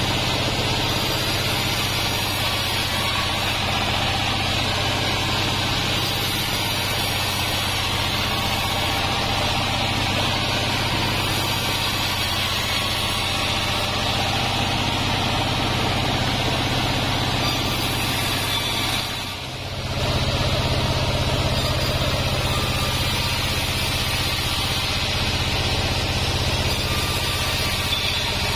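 Vertical band sawmill running steadily: motor and band blade hum with a hiss of sawing as waru (sea hibiscus) wood is fed through. The sound dips briefly about two-thirds of the way through, then carries on.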